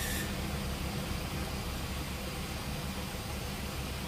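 Compressed air hissing through a hose into a large earthmover tyre over a steady low mechanical rumble. A louder hiss cuts off just after the start, leaving a fainter, steady hiss.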